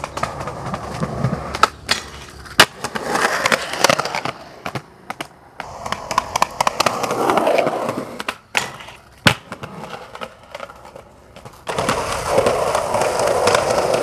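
Skateboard wheels rolling on concrete in several runs that swell and fade, broken by sharp clacks of the board hitting the ground, the loudest about two and a half seconds in and another about nine seconds in.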